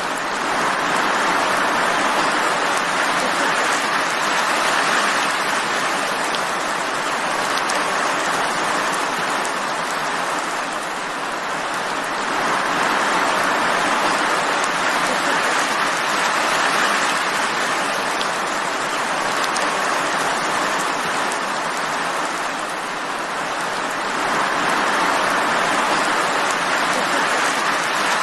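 Steady rain, an even hiss that eases slightly twice and swells back.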